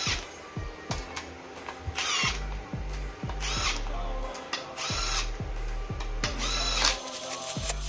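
Milwaukee M12 cordless power tool running cylinder-head bolts down in short bursts, about five or six times. Each burst spins up and cuts out on its own, the tool's auto stop reacting as the bolt goes snug. Background music with a steady beat plays underneath.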